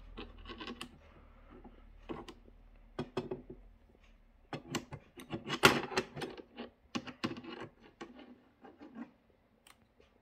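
Adjustable wrench clicking and scraping against the metal standoffs of a monitor's back panel as they are loosened: an irregular run of light clicks and short rattles, busiest in the middle.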